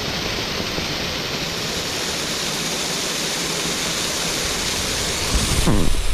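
Steady rushing of water falling over a spring-fed creek cascade, growing a little louder with a low rumble near the end.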